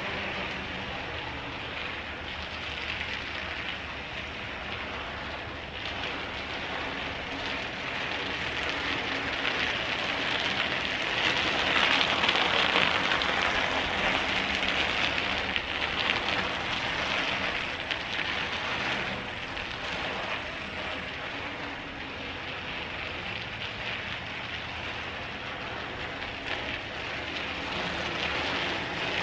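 Bicycle tyres crunching over gravel, an even hiss that grows louder as the bike passes close by about halfway through, fades, then rises again near the end as it rolls back toward the camera.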